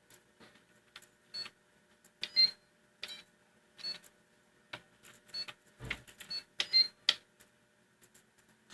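Short, high beeps from a PC's internal speaker, several of them at uneven intervals among sharp clicks: the menu-selection sound effects of a homemade x86 assembly operating system.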